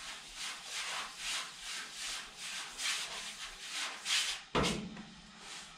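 Fingers rubbing a round vinyl sticker down onto a car's painted fender in quick repeated strokes, about two or three a second, smoothing it onto the panel. One louder bump about four and a half seconds in.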